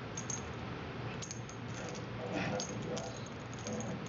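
Small bell on a cat's collar jingling in short, light tinkles, several times, as the collar is handled.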